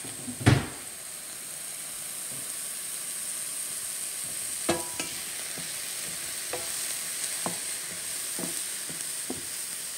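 Sliced mushrooms sizzling as they sauté in a frying pan, with a wooden spatula stirring them and scraping or tapping the pan about once a second from about halfway. A single loud thump about half a second in.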